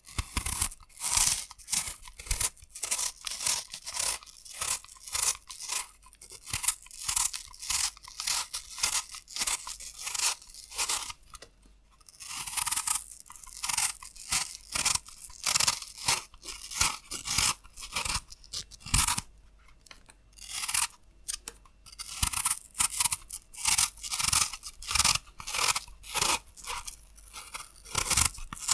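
Apple being peeled: a blade shaving off the crisp skin in short, crunchy strokes, about one or two a second, with one longer unbroken stroke about halfway through.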